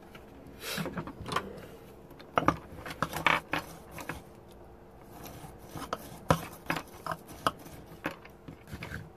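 Irregular clinks, taps and light knocks of small tools being handled and set down on a wooden workbench, including a pen-style soldering iron being picked up.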